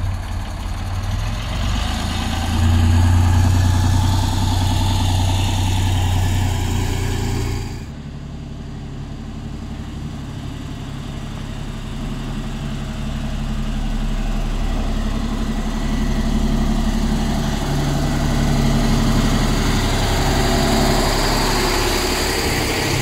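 Magirus Deutz 170D11 truck's diesel engine running steadily; about eight seconds in the sound changes abruptly to the truck driving along a gravel track.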